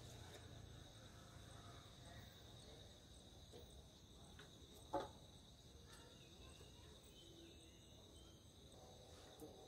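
Faint, steady, high-pitched insect trill, like crickets, with a single knock about five seconds in.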